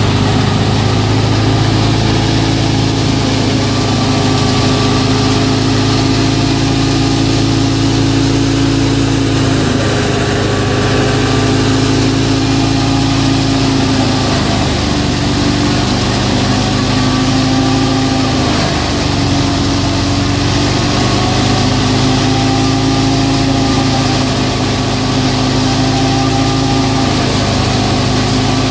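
FIAT 640 tractor's diesel engine running steadily under load as it drives a wheat thresher, with the thresher's drum and fan whirring while straw is fed through. The engine note dips slightly in pitch now and then as the load changes.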